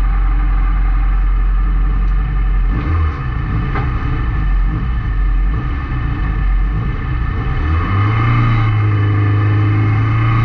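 Autocross Opel Astra's engine heard from inside the cabin: idling low at first, revs rising and falling through the middle, then held up at a steady higher pitch from about eight seconds in, creeping slightly higher.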